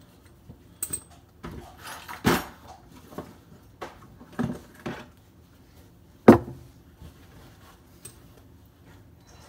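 Irregular knocks and clinks of tools and metal parts being handled, about eight in all, the loudest a sharp knock a little past six seconds in.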